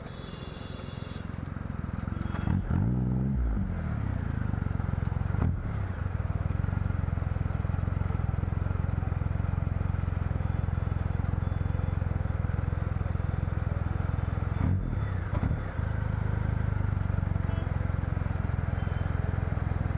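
Motorcycle engine idling at a stop, its throttle blipped twice so the pitch sweeps up and back down, about three seconds in and again about fifteen seconds in.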